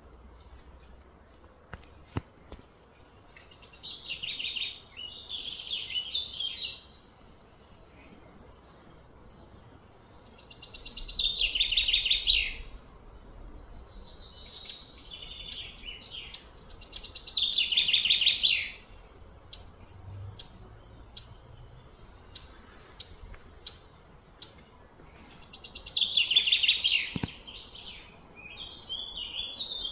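A songbird singing: high, rapidly trilled phrases of two to three seconds repeat every several seconds, with short chirps in between.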